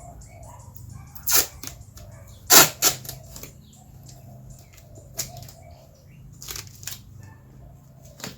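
Heat shielding sheet being cut and handled: a run of short, crisp rasping strokes, the loudest about two and a half seconds in, over a faint steady low hum.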